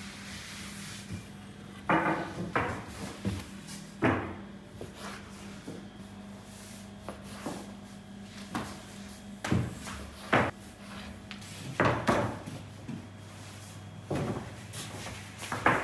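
Kitchen knife cutting through rolled sheets of noodle dough onto a plywood board, making about eight irregular wooden knocks. A steady low hum runs underneath.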